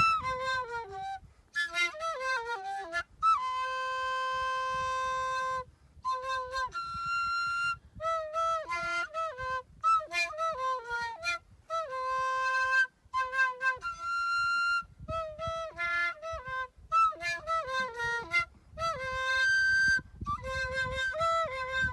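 A flute playing a solo melody of quick, separate notes, with a few long held notes, the longest about four to six seconds in.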